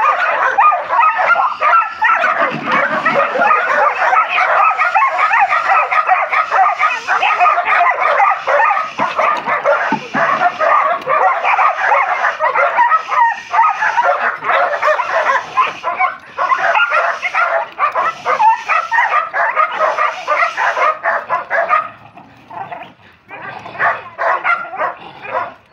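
Leashed dogs barking and yipping almost without pause while being worked on a bite sleeve in protection training; after about 22 seconds the barking thins out into separate barks.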